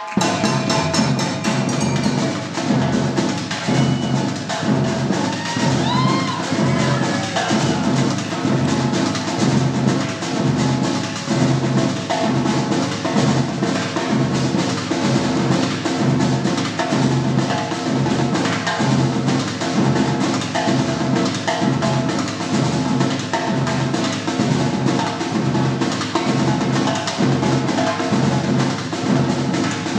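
Samba percussion band playing live: surdo bass drums and other drums keeping a steady, driving samba rhythm.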